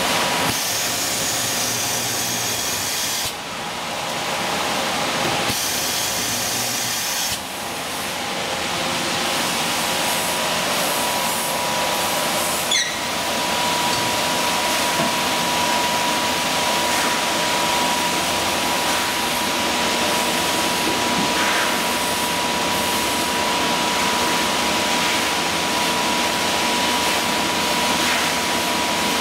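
Steady rushing hiss of running shrink-packaging machinery, with a constant high whine under it. The noise dips briefly twice in the first few seconds.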